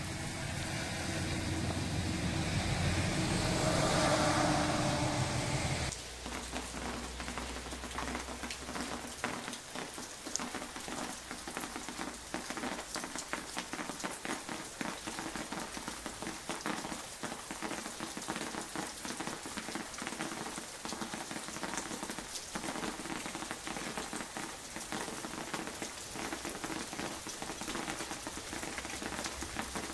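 Rain falling. At first it is a steady rush that swells and then cuts off sharply about six seconds in. After that the rain comes as a steady hiss full of small irregular taps of drops falling and dripping off a roof edge.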